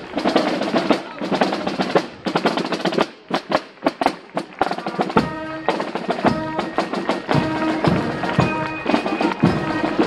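Marching drums in a parade, snare-style strokes beaten in quick runs. About five seconds in, wind instruments join in with held notes over the drumming, and crowd chatter runs underneath.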